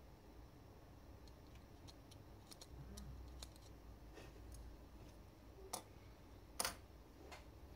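Faint small clicks and taps from a phone circuit board and a screwdriver being handled, then a few sharper knocks near the end as the board and tool are set down on a wooden desk.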